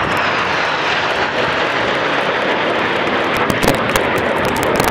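Jet engines of a formation of Northrop/Canadair NF-5 fighters flying past, a steady loud jet noise.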